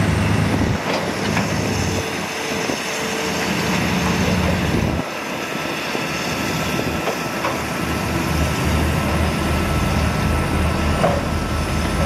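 Liugong B160C crawler bulldozer's diesel engine running under load, with its steel tracks clattering as it moves over the sand fill. The engine note drops about a second in and builds again in the second half.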